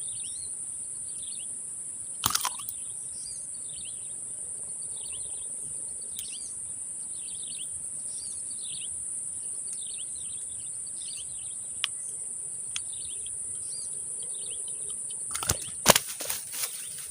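Insects drone steadily at a high pitch while a bird chirps in short, repeated calls. A sharp click sounds about two seconds in, and a few louder clicks and knocks come near the end.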